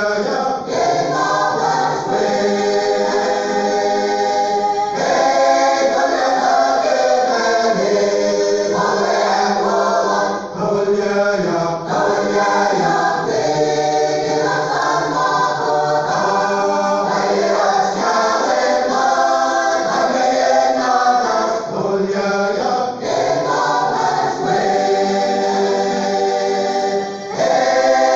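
A large mixed choir of women's and men's voices singing a church song in harmony, the parts holding and shifting their chords together.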